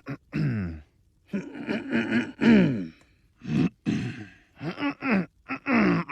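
A cartoon character's voice making a run of wordless groans, gasps and grunts in short bursts, each a second or less, with pitch sliding up and down.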